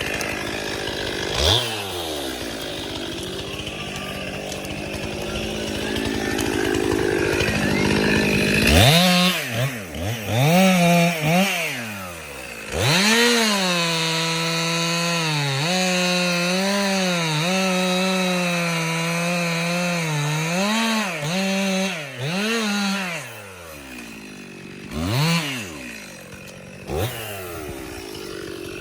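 Chainsaw running at low speed, then revved up sharply a few times and held at high speed for about ten seconds while cutting wood, its pitch dipping and recovering repeatedly under load. It then drops back to idle, with two short throttle blips near the end.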